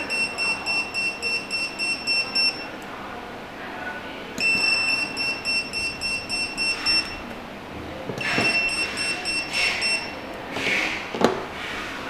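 Retekess T119 coaster pager's buzzer beeping rapidly in its buzzer alert mode, with the pager flashing: three runs of quick, evenly spaced high beeps separated by short pauses. A single sharp knock comes near the end.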